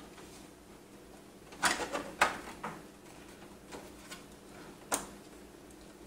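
Hard clicks and clacks of a case part being worked against a graphics card's mounting bracket at the back of a PC case: a cluster of knocks about one and a half to two and a half seconds in, a few lighter taps after, and one sharp click near five seconds.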